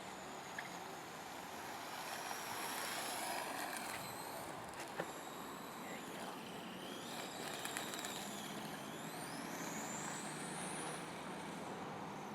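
Whine of a brushless RC car motor and its drivetrain as the car speeds up and slows down. The pitch rises and falls several times over a steady hiss, with a few sharp clicks.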